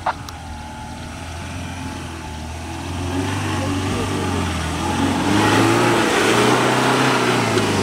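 Ford Endeavour's diesel engine pulling the SUV up a rutted dirt slope, its revs rising and falling, growing louder as it climbs past close by. Tyres scrabble over loose dirt.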